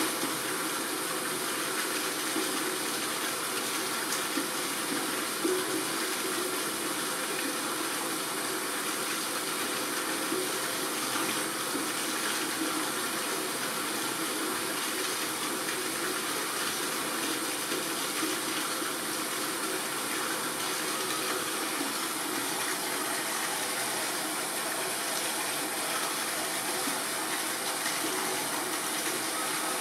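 Steady rush of running water in the polar bear's pool, holding unchanged throughout.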